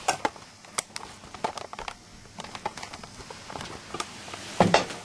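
Irregular soft taps, knocks and rustling of people moving about and hiding, with a louder knock near the end.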